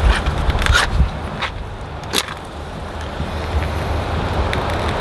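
A few small handling clicks, then a wooden match struck sharply on its matchbox about two seconds in to light a sterno can of gel fuel, over a steady low rumble.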